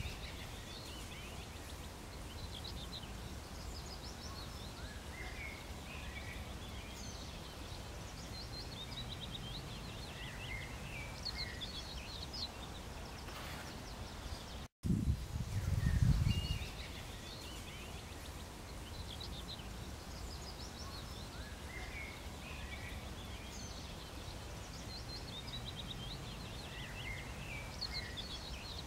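Small birds chirping and twittering in short scattered calls over a steady low outdoor background. The sound cuts out briefly about halfway through, then a loud low rumble lasts about two seconds before the same birdsong pattern repeats.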